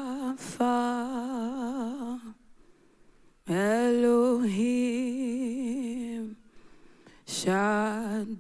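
A solo voice singing the names of God ("Rapha", "Elohim") slowly and unaccompanied: three long held notes with a wide vibrato, with short silent pauses between the phrases.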